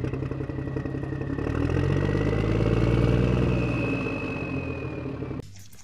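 Motorcycle engine sound effect that swells up to a peak about three seconds in and then fades, like a bike passing by, before cutting off abruptly near the end.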